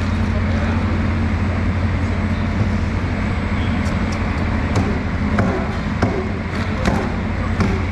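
Steady low hum of a running motor, with scattered light clicks and knocks in the second half as a knife cuts into a large sailfish lying on a steel floor plate.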